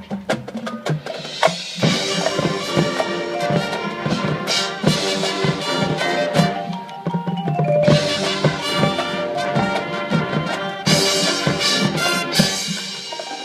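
High school marching band playing its field show: brass hornline over drumline and mallet percussion, with many sharp drum and mallet strikes under sustained horn chords.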